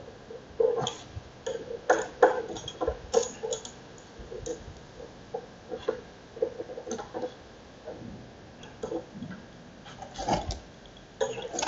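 Pipe wrench clicking and knocking on the metal filter housing of an airless paint sprayer while the filter is worked open, used in place of the proper tool. Irregular metallic clicks and taps, some with a short ring, and a few louder knocks.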